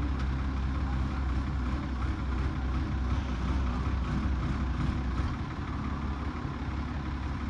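An engine idling steadily, with strong low-pitched running and no revving.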